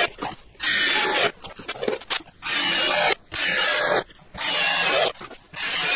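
Power drill driving screws into cedar gate rails, whining in short bursts of about half a second with brief pauses between them.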